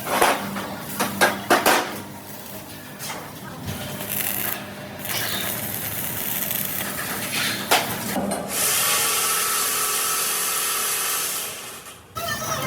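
Workshop tool sounds while steel parts are worked: several sharp knocks and scraping in the first part, then a steady harsh hiss for about three and a half seconds near the end, which cuts off suddenly.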